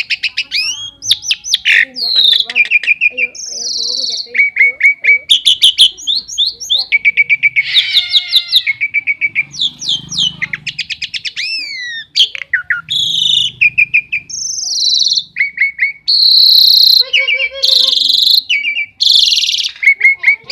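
A jalak (starling or myna) singing a long, varied song of whistles, quick rising sweeps and rapid trills, with harsher, rasping notes near the end.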